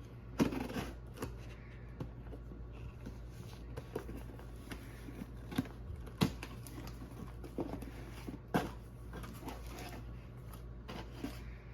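A cardboard box and its paper packing being worked open by hand: irregular rustling with scattered sharp clicks and knocks, the loudest about half a second, six seconds and eight and a half seconds in.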